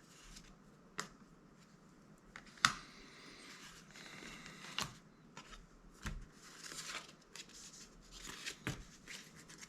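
Magic: The Gathering trading cards being flipped through by hand: soft sliding of card on card, broken by a few sharp snaps and taps, the loudest about a third of the way in.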